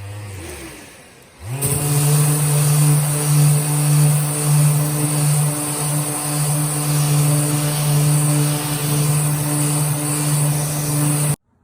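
Electric sander spinning up about a second and a half in, then running steadily on the wood with a hum and a high hiss, sanding the steamed-out dent smooth. It cuts off suddenly near the end.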